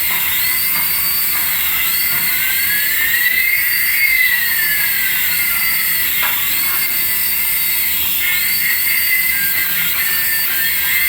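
Electronic sound effects from a battery-powered light-up toy's small speaker: high, repeating warbling beeps, with a long tone that rises and then falls about four seconds in.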